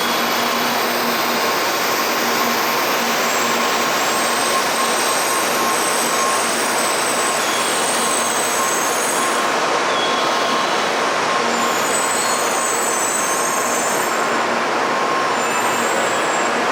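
Shinkansen train running in along the platform, a steady loud rush with high-pitched wheel squeals coming and going.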